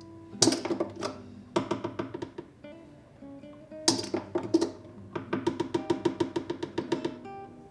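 Soft background instrumental music: a plucked-string instrument, like an acoustic guitar, playing quick runs of picked notes in several phrases.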